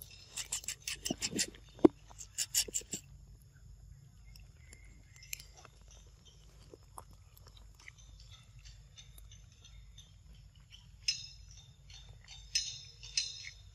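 Macaques chewing and smacking on soft mango close up: a quick run of wet smacking clicks in the first three seconds, then sparse quieter ones, and another run near the end.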